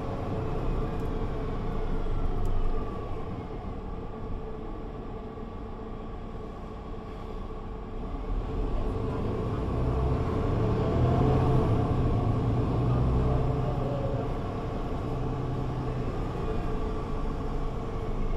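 Mercedes-Benz Citaro C2 G articulated bus on the move, its engine and automatic gearbox running under a steady road rumble. A faint whine falls away in the first few seconds as the bus eases off, and about ten seconds in it pulls harder and grows louder.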